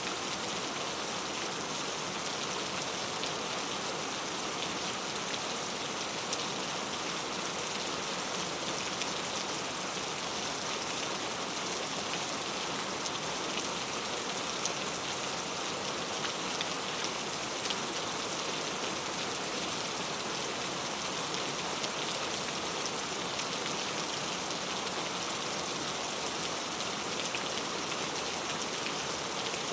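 Heavy rain falling steadily, a dense even hiss of drops hitting a surface, with many small individual drop ticks and no let-up.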